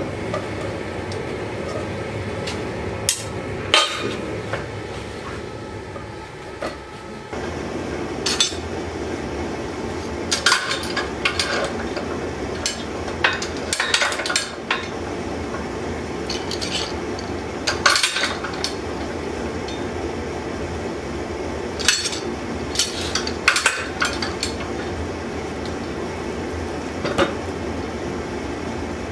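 Scattered metallic clinks and knocks from a steel sword blade and bar clamps being handled on a vise, over a steady rushing background from a running forge burner.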